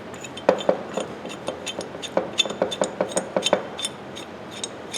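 Steel parts of a 10-inch Ridgid pipe wrench clicking and clinking as they are fitted back together by hand: a run of sharp metallic clicks, about four or five a second, that thins out to a few faint ticks after about three and a half seconds.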